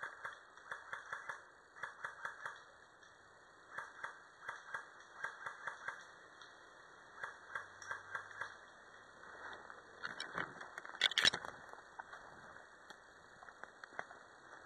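Footsteps crunching and rustling through dry fallen leaves, in short runs of crackles, with one louder crackling rustle about eleven seconds in.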